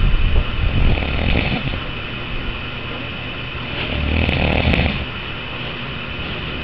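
A man snoring deeply. One snore trails off in the first second and another comes about four seconds in, over a steady background hiss.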